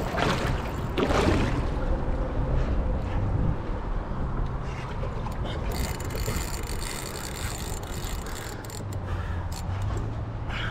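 Wind on the microphone and choppy water slapping against a pontoon boat's hull, a steady rumbling wash. A fine high rattling joins about six seconds in.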